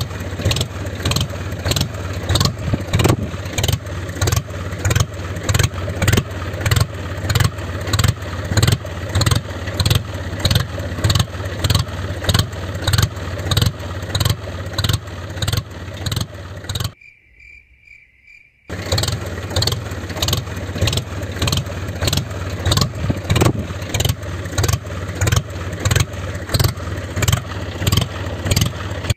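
Tractor engine running at a steady chug, about three beats a second. It cuts out for under two seconds about 17 seconds in, leaving only crickets.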